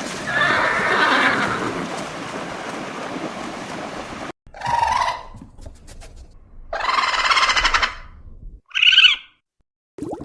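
Horse whinnying: a long call, then after a sudden break a few shorter separate whinnies, one of them quavering, with short silences between.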